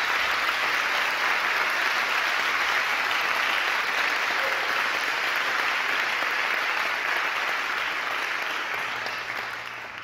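Audience applauding steadily, dying away over the last couple of seconds.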